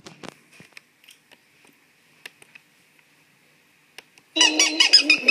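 Faint scattered clicks and a faint high steady whine, then, about four seconds in, a cartoon soundtrack starts loudly from computer speakers: squeaky, bird-like cartoon voices over music.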